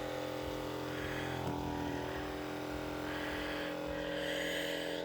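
Electric massager's motor running with a steady hum.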